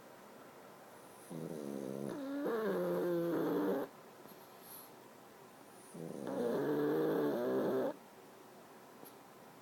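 Pug snoring: two long snores, each about two and a half seconds, with a wavering, pitched tone.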